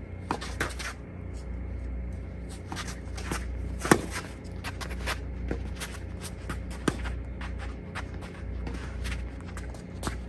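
Tennis ball struck by rackets during a rally: sharp pops a few seconds apart, the loudest about four seconds in, among lighter scuffs and taps of shoes on the court, over a steady low hum.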